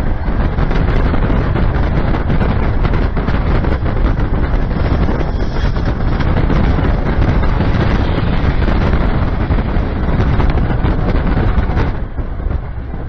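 Strong wind buffeting the microphone, a loud, steady rushing noise heaviest in the low end. It eases somewhat about a second before the end.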